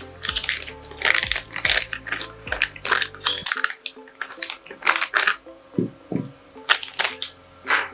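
Clear plastic bag crinkling and rustling in irregular crackles as it is handled and a part is unwrapped from it.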